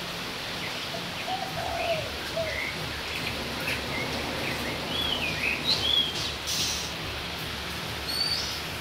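Small birds chirping in short, scattered, rising and falling calls, with a few lower sliding notes, over the steady hiss of rain.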